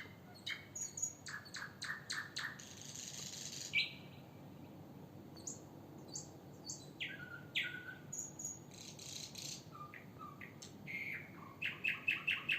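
Songbirds chirping and singing in the pre-dawn chorus: short high calls and a few buzzy trills in scattered clusters, ending in a quick run of repeated notes, over a faint steady low hum.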